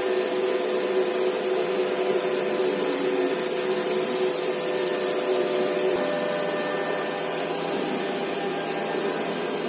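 CNC router's 9 kW HSD air-cooled spindle running and cutting wood: a steady machining noise with a hum and a thin high whine. About two-thirds of the way through, the whine stops and the noise drops slightly.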